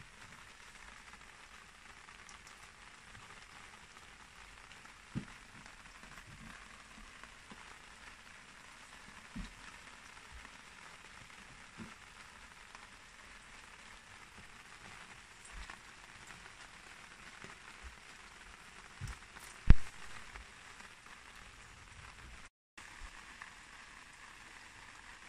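Steady outdoor hiss with a few short, dull knocks from plastic nursery pots being handled and set down on an enamel basin. The loudest knock comes about three-quarters of the way through.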